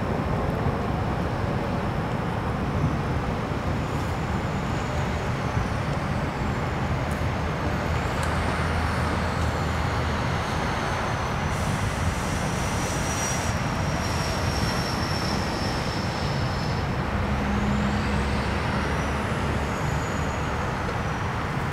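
Steady city traffic noise, with a faint high-pitched whine that rises and falls several times over it.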